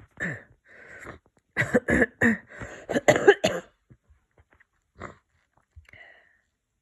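A person with a head cold letting out a rapid run of several explosive, congested bursts over about two seconds, after a couple of short breaths in.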